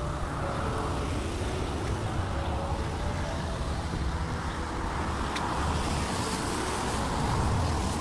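Road traffic: cars passing on a city street, a steady rush of tyre and engine noise that swells and peaks as a car goes by near the end.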